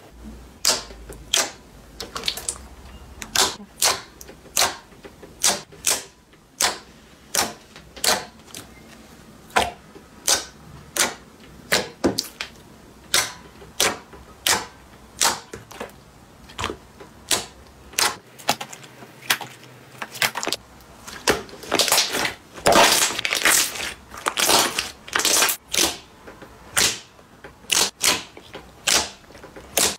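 Glossy slime being pressed, folded and poked by hand, giving a string of sharp pops and clicks as trapped air bursts, about one or two a second. They come thicker and louder about two-thirds of the way through.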